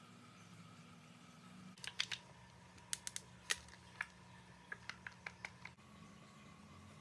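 A run of about a dozen sharp clicks and taps from plastic makeup compacts and a palette being handled, starting about two seconds in and stopping shortly before the end, over faint room hum.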